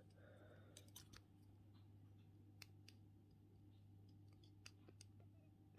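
Near silence: room tone with a low steady hum and a few faint, scattered clicks as a small plastic toy figure is handled close to the microphone.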